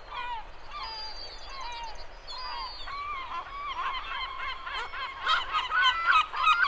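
A flock of gulls calling, many overlapping high, wailing calls that grow denser and louder over the last couple of seconds.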